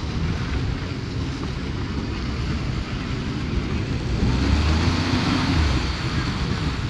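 Ford F-150 Tremor pickup's engine revving under load while its tyres spin on ice and packed snow, with a hiss of spinning tyres and wind buffeting the microphone. The engine grows louder about four seconds in.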